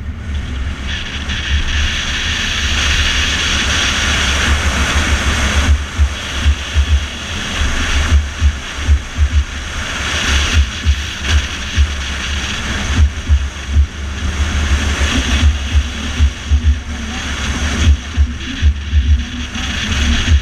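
Car driving at road speed: a steady rush of road and wind noise, with irregular low thumps a few times a second from about six seconds in.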